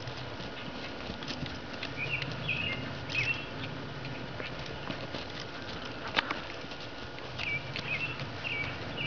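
Soft hoofbeats of a black Azteca mare trotting on dry, mown grass, with short high chirps a couple of seconds in and again near the end, and a single sharp click about six seconds in.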